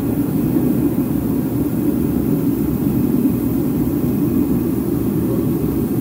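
Electric air blower running steadily, a loud, even rush of air and motor noise, blowing on long wet hair to dry it.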